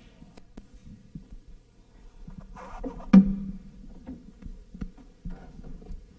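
Quiet room sounds after the singing stops: scattered soft knocks and faint murmuring, with one sharp knock about three seconds in.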